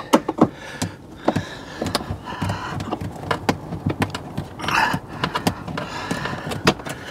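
Phillips screwdriver working screws loose inside a caravan's cassette-toilet bay: irregular small clicks and knocks of the tool, the screws and the plastic housing being handled.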